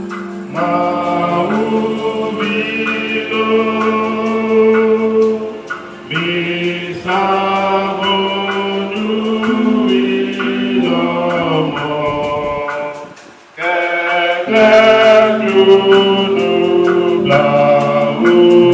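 Choir singing sustained notes in harmony, breaking off briefly about thirteen seconds in before going on.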